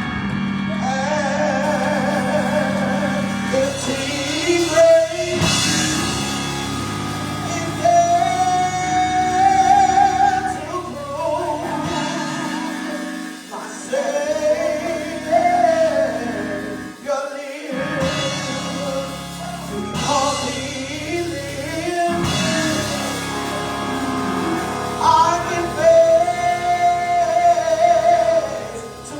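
Gospel song with singing over keyboard and drums, the voice holding long notes with vibrato, phrase after phrase.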